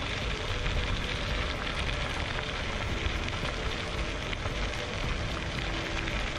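Electric scooter's 8.5-inch tyres rolling over a gravel path: a steady gritty crackle with small rattles, plus faint short tones that come and go.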